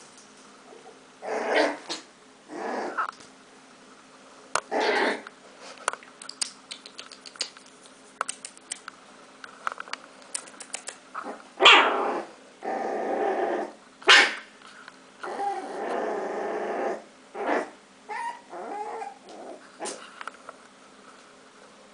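Puppies play-fighting: repeated bursts of growling with short yips and barks, the loudest about halfway through, and light clicks in between.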